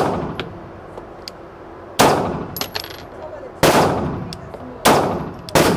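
BB6 striker-fired 9mm pistol being fired: five shots, unevenly paced about one to two seconds apart, each echoing in an indoor range.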